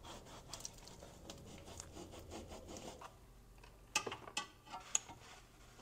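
Gloved hand wiping a car's steel subframe with a rag: faint rubbing and scratching, with a few sharp clicks about four to five seconds in.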